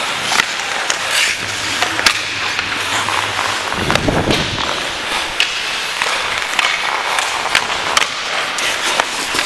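Ice hockey skate blades scraping and carving across the ice, with sharp clicks of sticks and puck, and a brief low rumble about four seconds in.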